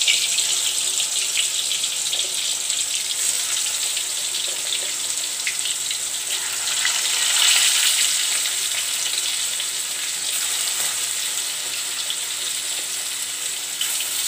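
Chicken pieces frying in hot coconut oil in a metal kadai: a steady sizzle with fine crackling, a little louder about halfway through.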